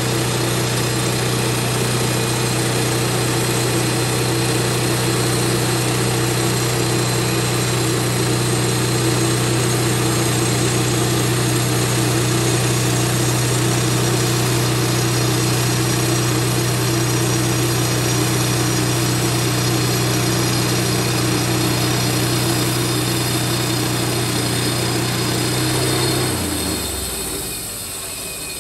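Wood-Mizer LT15 bandsaw sawmill running steadily under power while milling a log, then winding down with a falling pitch near the end.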